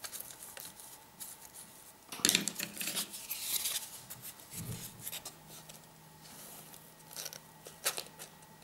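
Cardboard and paper being handled: scattered rustles and light taps, with a longer scraping or cutting sound about two seconds in.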